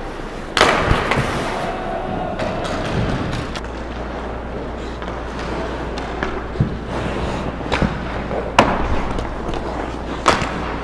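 Ice hockey play around the goal: skates scraping the ice under a steady rink hum, with sharp knocks of sticks and puck. The loudest strike comes about half a second in, followed by about a second of scraping hiss, and there are more knocks near the end.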